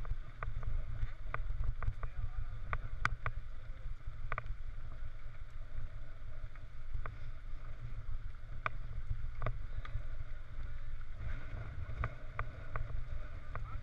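Riding noise from a helmet-mounted camera on a mountain bike on a gravel track: a steady low rumble of wind and ride vibration, with scattered sharp clicks and rattles from gravel and bike parts at irregular moments.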